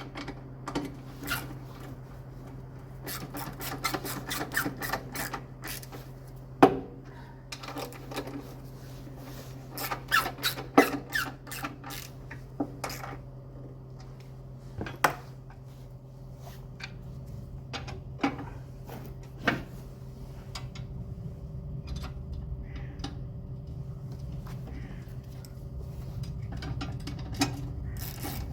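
Metal clinks, rattles and sharp knocks of tools and bolts as a Camon scarifier's cutting cartridge is unbolted and swapped, with a steady low hum underneath.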